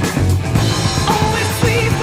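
Loud rock music with guitar and a wavering lead line, likely a vocal.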